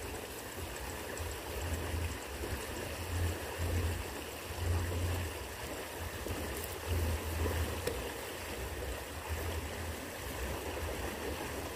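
Steady rushing of stream water, with an uneven low rumble underneath.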